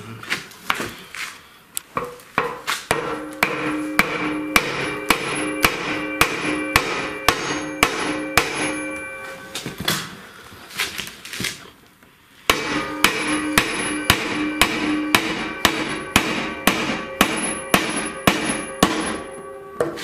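Hammer blows on the end of a Miele washing machine's drum shaft, driving the shaft and spider out of the tub's failed bearings. The strikes come in a quick run of about two or three a second, each leaving the steel tub ringing, with a pause of a few seconds about halfway.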